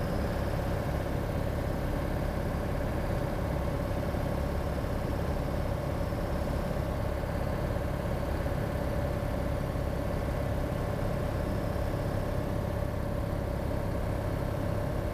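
Cessna 182's piston engine and propeller droning steadily, heard from inside the cabin, on final approach to land.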